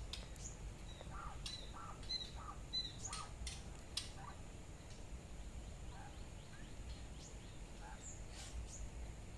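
Laying quail (Japanese quail) calling: scattered short chirps and high peeps, the chicks and the hen calling for each other after being separated.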